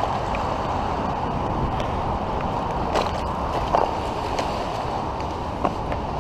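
Steady rushing outdoor noise with a few sharp knocks, the loudest about four seconds in.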